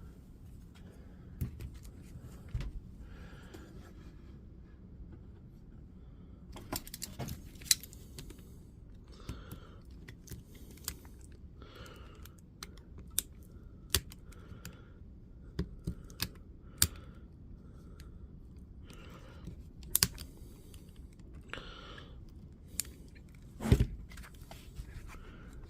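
Small hand tools clicking and scraping on the DeWalt DCS355 multi-tool's parts as two broken-off wires are dug out for re-soldering. There are sporadic sharp clicks, a louder one near the end, and short scratchy scrapes between them.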